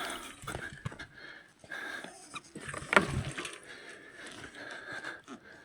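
A person breathing hard and straining while pushing a bicycle up a rocky trail, with scattered knocks and scrapes of the bike and stones. The loudest moment is a sharp knock with a falling grunt about three seconds in.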